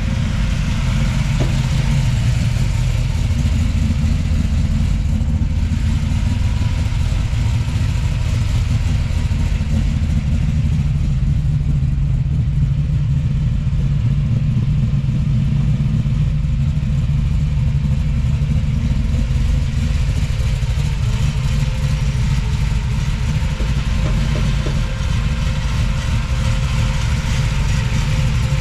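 565 cubic inch big-block Chevrolet V8 in a Holden HQ Monaro idling steadily close by.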